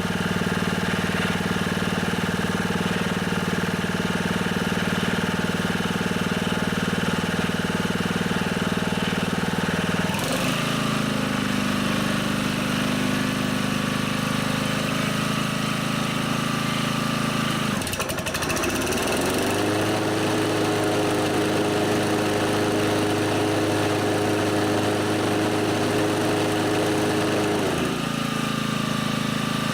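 Honda HR215 lawnmower's single-cylinder engine running steadily at idle, then changing speed about a third of the way through, climbing to a higher steady speed a little past halfway and dropping back near the end. It holds each speed evenly without surging, now that its clogged slow jet has been cleared.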